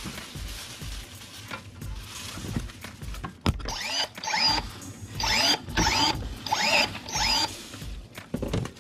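Cordless brushless electric pruning shears cutting sapling branches. There is a sharp click about a third of the way in, then six short motor whirs, each rising in pitch, in three pairs, as the blade snaps shut and reopens.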